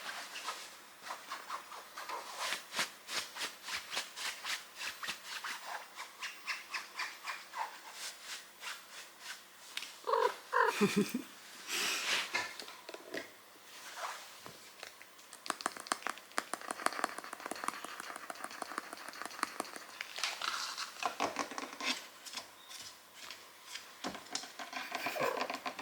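Domestic cat close to the microphone: a steady run of soft rhythmic ticks, about four a second, with purring. There is a short meow falling in pitch about ten seconds in, and more brief calls near the end.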